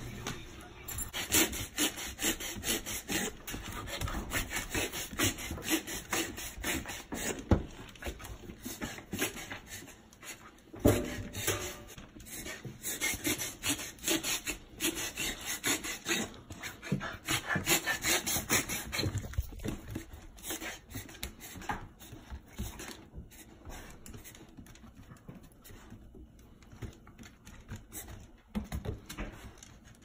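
A four-month-old puppy coughing in repeated short bouts: the cough of a confirmed case of kennel cough, though the uploader notes it can resemble reverse sneezing. Dog claws click and scuffle on a hardwood floor.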